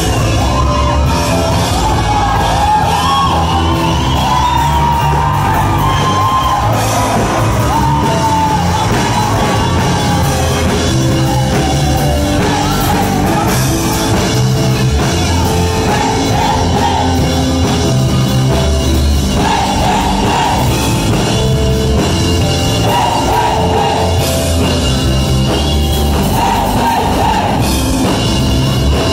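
Live church band music on keyboard and electric guitar, with singing and shouts over it.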